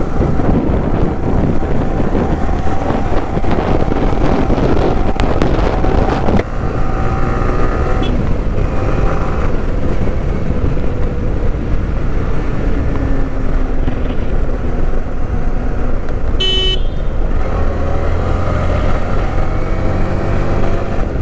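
Yamaha R15 V3's single-cylinder engine running as the motorcycle rides through traffic, its pitch rising and falling with speed, under steady wind and road noise. A vehicle horn toots briefly about three-quarters of the way through.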